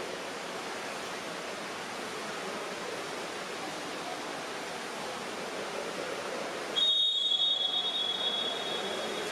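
Steady hiss of pool-hall ambience, then about seven seconds in a loud, shrill referee's whistle blast held for about two and a half seconds.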